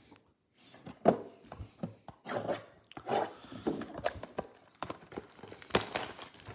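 Trading cards being handled and shuffled by hand: stiff cards sliding and rubbing against one another, with scattered light clicks and rustles. The sharpest click comes about a second in.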